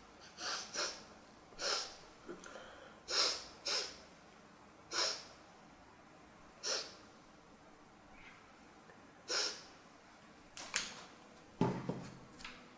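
A run of about nine short, sharp sneezes at irregular gaps, some coming in quick pairs. A lower, duller noise follows near the end.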